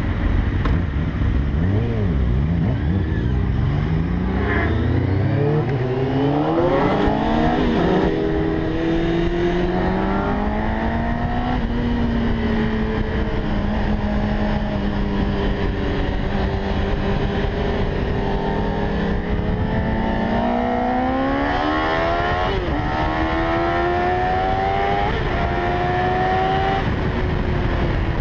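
600 cc inline-four sport motorcycle engine heard onboard, pulling away and accelerating through the gears: its pitch climbs, holds steady for several seconds midway, then climbs again with sharp drops at two gear changes near the end.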